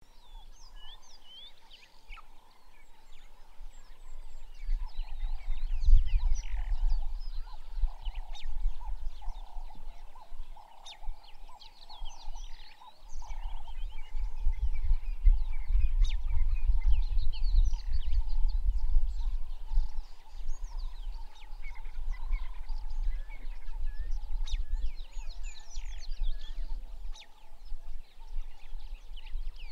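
Dry-bush ambience: many short bird chirps over a steady droning chorus of calling animals, under a low rumble of wind on the microphone. The rumble comes in about five seconds in, drops out briefly around thirteen seconds, and is the loudest sound.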